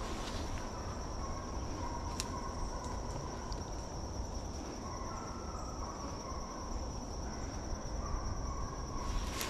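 A steady, high-pitched insect trill over a low rumble. Footsteps through brush and leaf litter start near the end.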